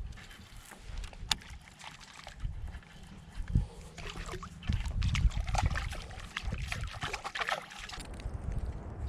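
Water splashing and sloshing around a small fishing boat, busiest and loudest in the middle stretch, over a steady low rumble with a few sharp knocks.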